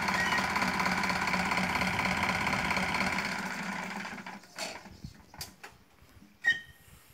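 Tractor diesel engine running steadily while it powers the scissor lift as the platform rises, then dying away about four seconds in. A few faint clicks follow, and a short high chirp comes near the end.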